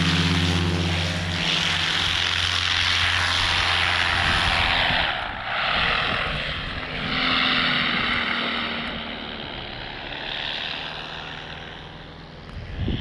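Paramotor's two-stroke engine and propeller running at full takeoff power, a steady drone that fades after about five seconds as the wing climbs away. Rushing wind noise remains.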